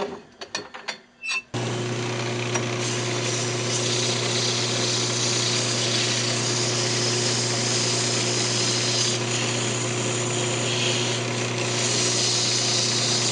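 A few metal clunks as the lathe's tool rest is moved aside. About a second and a half in, the wood lathe starts and runs with a steady hum, while sandpaper hisses against the spinning blackheart keychain blank.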